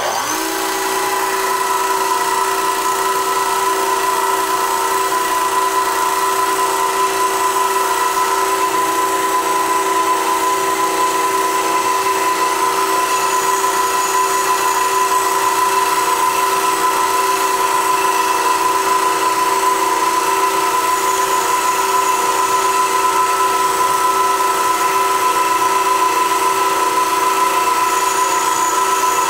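Tool post grinder's motor and small grinding stone spinning at high speed: a steady whine with several held tones, coming up to full speed just at the start. The grinder runs on while its new, tapered stone is dressed true with a diamond.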